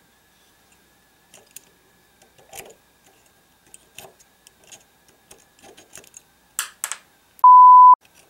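Small metallic clicks and scrapes of fingers handling the receiver end plate and sling loop on an AR-15 buffer tube, with two sharper clicks a little before the end. Near the end a loud steady bleep tone lasts about half a second.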